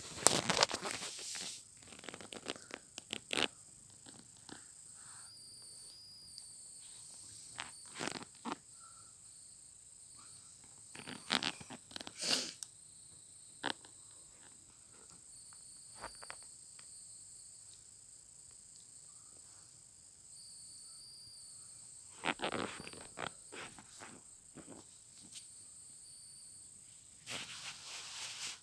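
Soft rustling and handling noises, with a few louder scrapes, as a cat is held and cuddled close to the microphone. A faint steady high-pitched chirr runs underneath.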